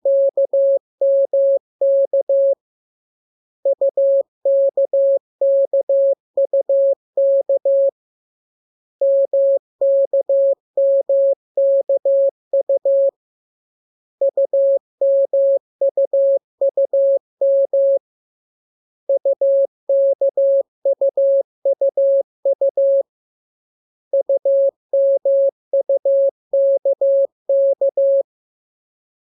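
Morse code practice sending: a steady tone of about 600 Hz keyed into quick dots and dashes, in groups of characters a few seconds long with pauses of about a second between them.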